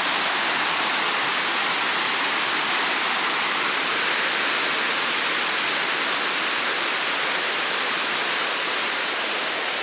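Water pouring over a river weir: a steady, even rush of falling water.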